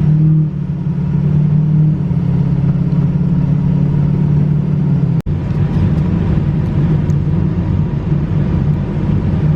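Ford 6.0L Power Stroke V8 turbodiesel with a straight-piped exhaust, running under way and heard from inside the cab as a steady low drone. The sound cuts out briefly about five seconds in, then resumes rougher and less even.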